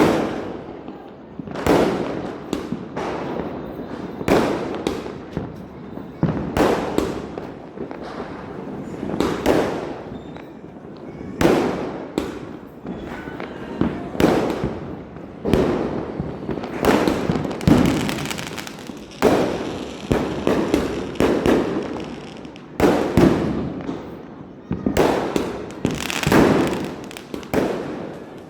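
Diwali firecrackers bursting one after another: a long run of sharp bangs, roughly one every second or so, each trailing off briefly.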